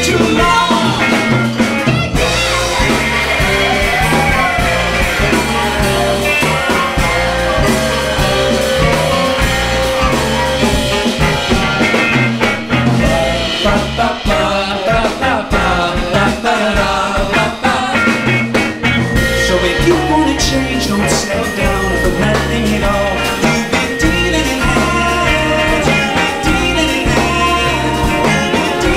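Live band playing a song, with singing over a repeating bass and drum groove.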